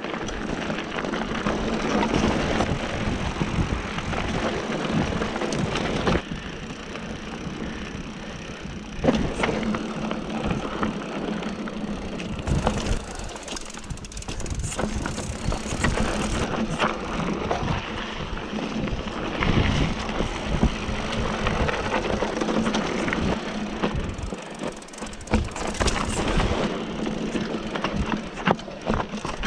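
Mountain bike riding down a rough dirt and rocky trail: tyres crunching over gravel and stones, and the bike rattling and knocking over bumps. Wind buffets the handlebar-mounted camera's microphone.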